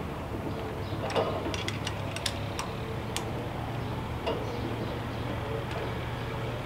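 Light metal clicks and taps from a trailer trimmer rack's clamp hardware being worked and snugged by hand: a quick irregular run of about ten starting about a second in, and one more a little past four seconds, over a steady low hum.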